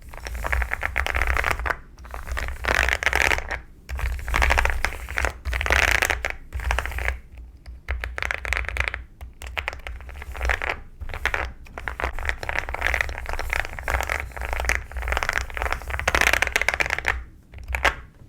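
Rapid typing on a mechanical keyboard with a creamy sound: dense runs of key clicks in bursts of one to two seconds, with short pauses between them.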